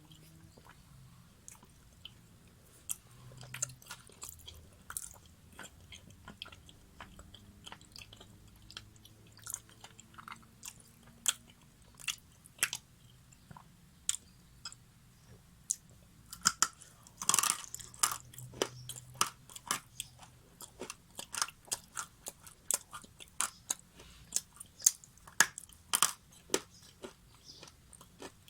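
Close-miked crunching and chewing of something brittle: scattered sharp crunches at first, then a loud run of bites about two thirds of the way in, followed by rapid, dense crunching.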